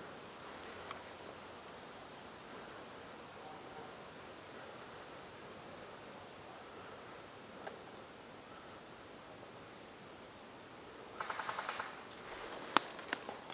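Field insects chirring steadily in one high-pitched band. Near the end there is a short rapid run of clicks, then two sharp snaps about half a second apart, the first the loudest sound heard.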